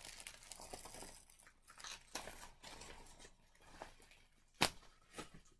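Faint crinkling of a plastic bag and rustling of a paper sheet being handled and unfolded, with a sharp crackle about four and a half seconds in.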